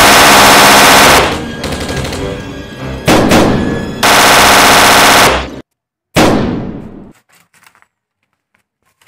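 Automatic gunfire sound effects in long rapid bursts: one for about a second at the start, a short burst around three seconds in, and a longer one at about four seconds that cuts off abruptly. A single shot follows, ringing out and fading.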